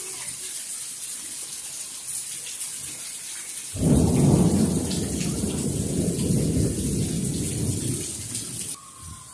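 Heavy thunderstorm rain pouring steadily. About four seconds in, a loud low rumble of thunder comes in suddenly and runs for about five seconds. Near the end the rain sound drops away abruptly and a faint, slowly falling siren tone is heard.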